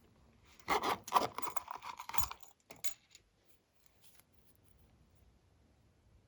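A short clatter of many small sharp clicks lasting about a second and a half, followed by one more click, then quiet.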